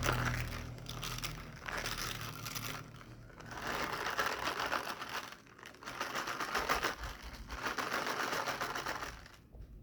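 Dense crackling and clicking handling noise, coming in three swells of a couple of seconds each and dying away near the end.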